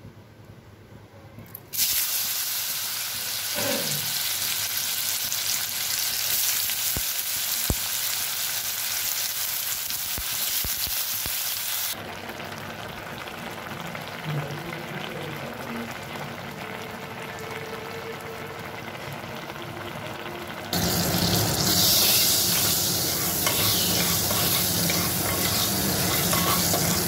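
Chopped mushrooms frying in hot oil in a wok, with stirring: a loud sizzle starts suddenly about two seconds in as the mushrooms give up their water. It drops back at about twelve seconds and grows louder again near the end, where mustard seeds and dried red chillies sizzle in oil.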